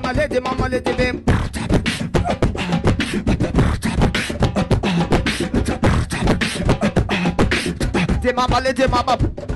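Beatboxing into a handheld microphone: a fast run of vocal kick, snare and hi-hat sounds, with a hummed, held pitched tone in the first second and again near the end.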